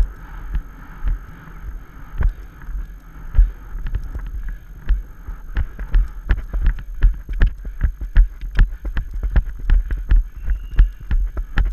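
A horse cantering on a sandy track, heard from the saddle: a quick, uneven run of hoofbeats and thuds that comes faster from about halfway, with wind on the microphone.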